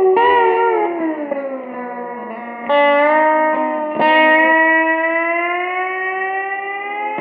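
Electric six-string guitar played with a slide in a blues style. Three plucked notes are each held while the slide glides the pitch slowly down and back up.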